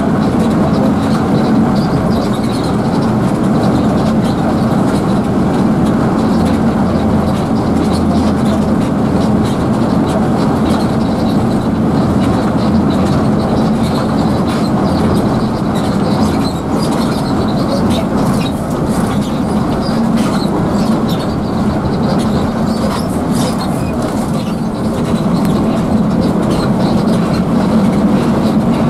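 Steady drone inside a coach's cabin at highway speed: engine and road noise from the moving bus, with a steady low hum running throughout.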